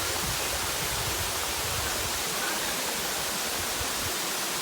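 Steady, even rush of falling water, like a waterfall or stream.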